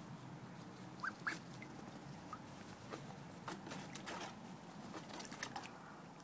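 A seven-week-old duck gives a few faint, short rising peeps about a second in, then a run of soft clicks as its bill nibbles at a person's fingers.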